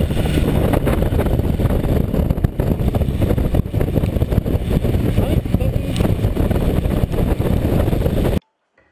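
Honda Rebel motorcycle on the move: wind rushing over the microphone, with the engine running and tyres on a wet road underneath. It cuts off suddenly near the end.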